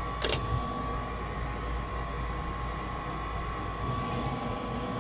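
Furnace draft inducer motor running steadily with a constant high whine over a low hum, while the pressure switch sees no draft pressure. The technician suspects something blocking the exhaust. A brief sharp noise comes about a quarter second in.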